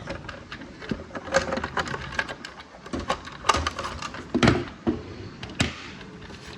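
Plastic clicks and knocks as a battery pack is handled and pushed into the rear battery slot of a Tyco Dagger RC car's stunt shifter, the loudest knock about four and a half seconds in.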